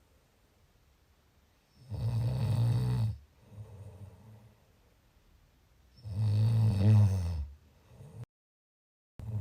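Snoring in deep sleep: two loud, low snoring breaths about four seconds apart, each followed by a quieter breath. Near the end the sound cuts out completely for about a second.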